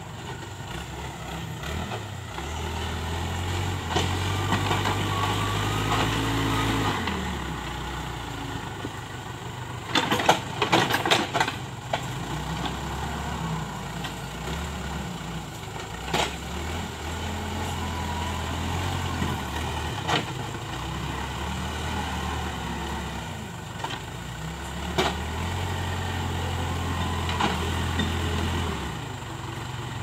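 Case 580K backhoe loader's four-cylinder diesel engine running, its note swelling for spells of a few seconds as the hydraulics take load while the backhoe digs. Sharp knocks come through it, a quick cluster about ten seconds in and single ones later.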